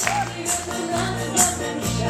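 Instrumental intro of a pop-style song accompaniment: a steady beat of low bass notes about once a second, with a bright, tambourine-like percussion hit falling between them.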